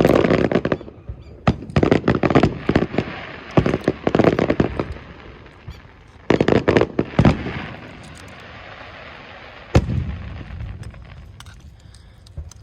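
Aerial firework shells bursting in rapid volleys of sharp bangs, with pauses between the clusters. A single loud bang comes about ten seconds in, followed by a low rumble.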